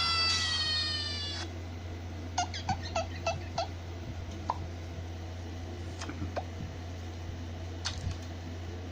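Cat meowing sound effect: a long cry falling in pitch at the start, then about five short, quick mews a couple of seconds in. A steady low hum runs underneath.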